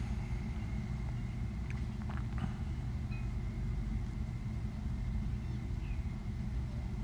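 Steady low rumble of outdoor background noise, with a few faint clicks about two seconds in.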